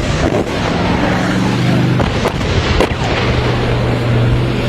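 Battlefield noise: a few sharp bangs over a steady low engine hum and dense noise.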